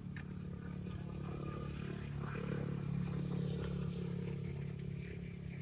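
An engine running with a steady low hum that swells a little around the middle and eases off toward the end.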